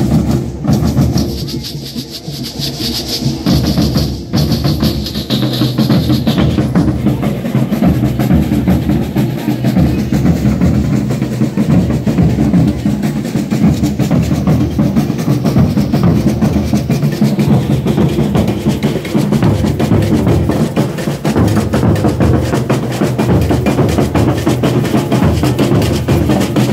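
Maracatu drum ensemble playing a dense, steady rhythm: deep alfaia bass drums under rattling snare drums.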